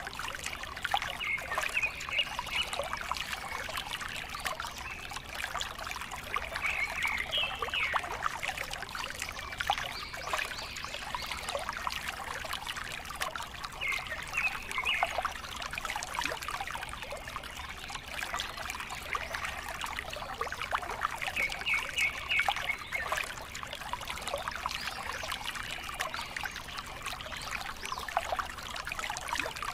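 Water pouring from a small spout of a miniature pump into a shallow model pool, a steady trickle and splash. A short chirping sound recurs every six or seven seconds.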